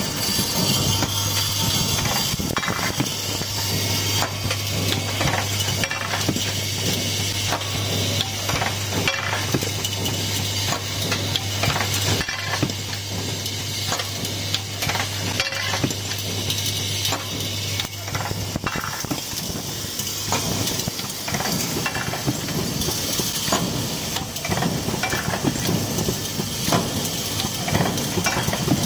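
Automatic fire-sprinkler glass-bulb assembling machine running: a continuous clatter of small metallic clicks over a steady hiss. A steady low hum runs underneath and stops about two-thirds of the way through.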